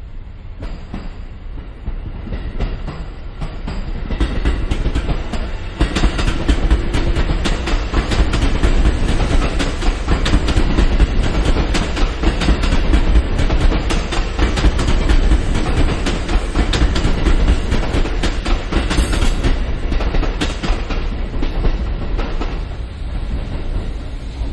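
JR East E653 series 1000 electric multiple unit pulling out of the station and running past, its wheels clacking over rail joints. The sound builds over the first few seconds, stays loud while the cars go by and eases off near the end.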